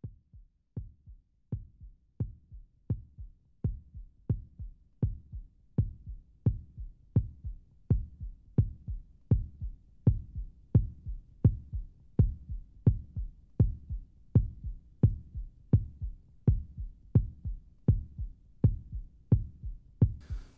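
Intro music track made of a steady, deep thumping beat, about three thumps every two seconds, like a slow heartbeat; it swells in over the first few seconds and then holds even.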